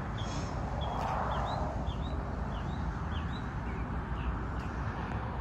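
A songbird calling in a run of short, quick chirps, about two to three a second, over steady outdoor background noise that swells about a second in.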